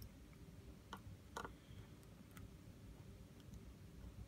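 A few faint clicks and ticks of a small precision screwdriver working the tiny screws inside an iPhone 6s, the loudest about one and a half seconds in, over near-silent room tone.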